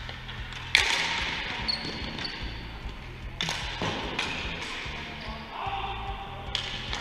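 Sharp, echoing knocks of a ball hockey ball and sticks against the boards and floor: the loudest about a second in, a few more later, over background music.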